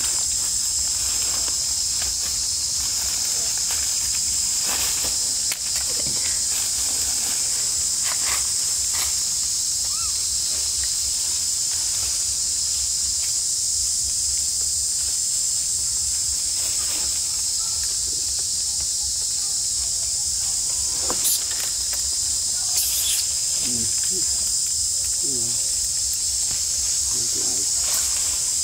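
Steady high-pitched drone of insects in the surrounding forest, with scattered light rustles and clicks from dry leaf litter.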